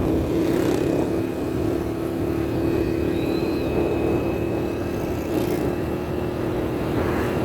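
Steady low engine hum with a faint high whine above it.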